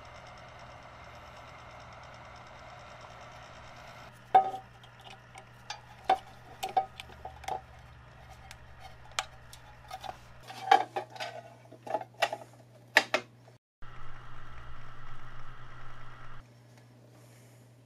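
Heat gun blowing steadily for about four seconds while shrinking heat-shrink tubing over stepper-motor wires, then a string of sharp plastic clicks and knocks as the wires and a connector are handled. Near the end, a shorter steady whir for about two and a half seconds.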